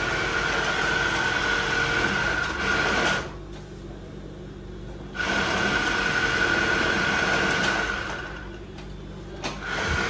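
Industrial flatlock sewing machine stitching in runs: a steady high whine that stops about three seconds in, runs again for about three seconds from about five seconds in, and starts a third run shortly before the end.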